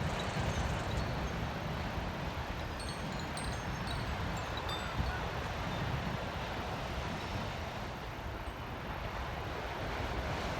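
Koshi chime ringing, a scatter of bright tinkling notes, most of them in the first half, over the steady wash of sea waves and wind on the microphone.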